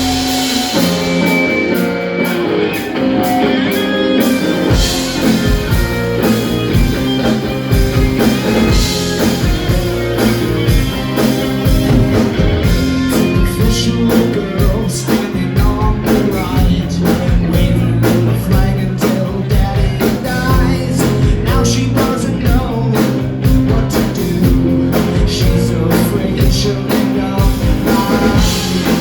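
Live rock band playing: sustained guitar chords at first, then drums and bass come in with a steady beat about five seconds in.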